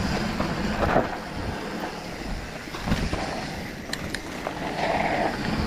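Mountain bike riding over a dirt trail: wind rushing on the microphone and tyre and trail noise, with a few sharp clicks of the bike rattling about four seconds in.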